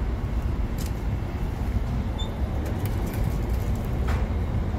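Steady low rumble of road traffic, with a couple of faint clicks.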